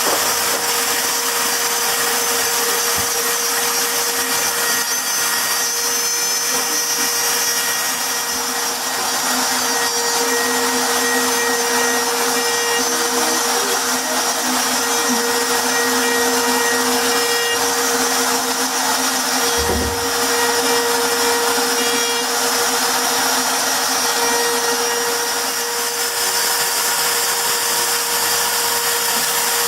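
CNC router spindle running steadily with a constant high whine while its bit engraves a wooden plaque. There is a brief low thud about twenty seconds in.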